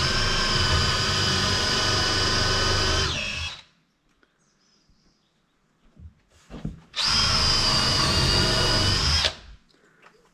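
Power drill running in two long runs, each a steady whine that dips in pitch as it winds down, with a near-quiet gap between them.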